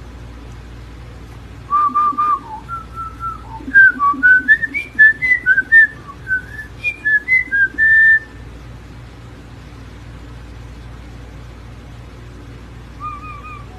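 A whistled tune of short, quick notes for about six seconds, starting a couple of seconds in and ending on one held note. A steady low hum runs underneath.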